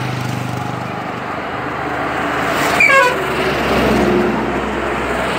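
Steady engine and road noise of motor vehicles moving along a road, a motorcycle running close alongside. A brief higher-pitched toot about three seconds in.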